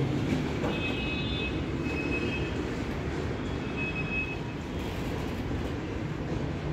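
Freight train of loaded flat wagons rolling slowly, a steady low rumble of wheels on rail, with high-pitched metallic squeals about a second in and again around four seconds in.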